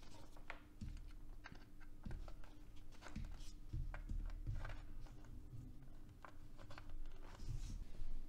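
Light clicks and scrapes of RCA plugs being pushed into the rear phono jacks of a mid-1980s NAD amplifier, bridging the pre-out and main-in sockets so signal can reach the power amplifier. A faint steady hum runs underneath.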